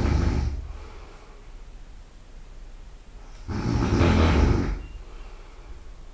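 A person snoring very loud: a snore fades out about half a second in, and another comes about three and a half seconds in and lasts just over a second. Each is a low rumble with a breathy hiss above it, with quiet breathing in between.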